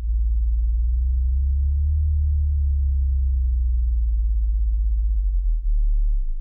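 Deep, steady synthesized bass drone, close to a pure low tone. It starts abruptly, dips briefly near the end and cuts off suddenly.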